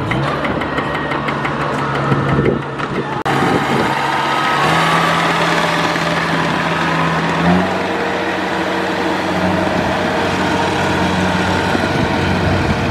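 A farm tractor's engine runs for about three seconds. Then a Kubota DC-70 Plus rice combine harvester's diesel engine runs steadily as it crawls on its tracks, its pitch stepping up slightly about halfway through.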